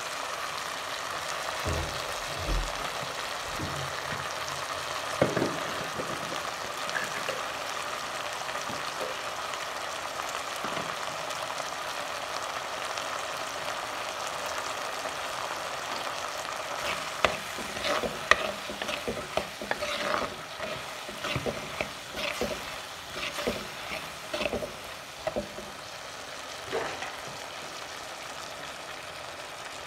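Turkey berries, onion and tomato sizzling steadily as they sauté in an earthen clay pot, with a spatula stirring and scraping against the pot. The stirring knocks come in a quick, irregular run through the second half.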